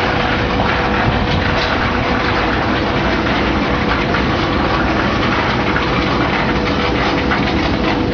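Industrial fruit and vegetable washing machine running: a steady rush of water with a constant motor hum.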